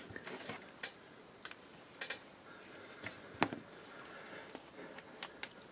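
Scattered light clicks and taps of a paint bottle and brush being handled on a hobby desk, with one louder knock about three and a half seconds in.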